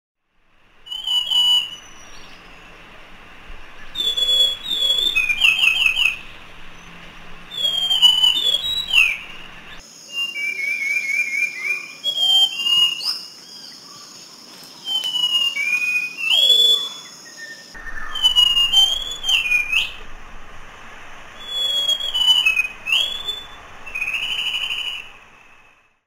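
White-eared ground thrush singing: clear whistled phrases of sliding notes and quick trills, a phrase every two or three seconds. A steady high hiss sits under the song for several seconds in the middle.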